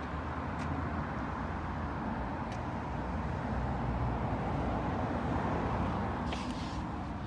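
Steady low rumble heard inside a car cabin, with a couple of faint clicks and a brief rustle of the phone being handled about six seconds in.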